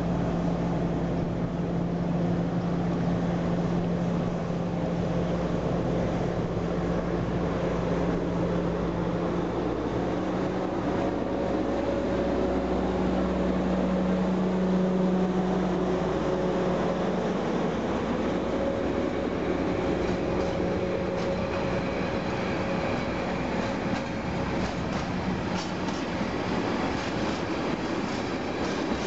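An OSE class 220 (ADtranz DE2000) diesel-electric locomotive pulling a freight train past, its engine droning steadily. After the locomotive has gone by, the tank wagons roll past with the clickety-clack of wheels over rail joints and a faint, thin wheel squeal.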